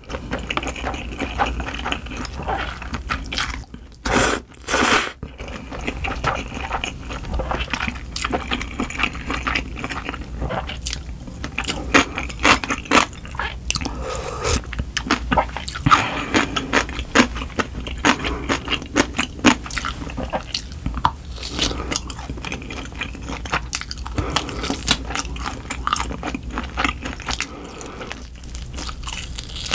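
Close-miked eating of cold buckwheat noodles in broth. A few seconds in there are two long, loud slurps. After that comes steady chewing with many short wet clicks and smacks, along with sips of broth from a ladle.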